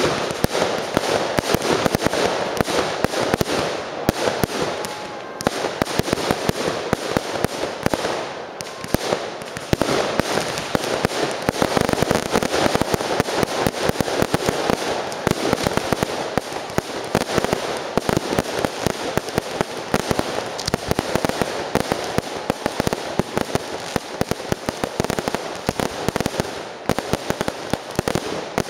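Fireworks display firing a dense, continuous barrage of rapid bangs and crackles, with brief lulls about five and eight seconds in.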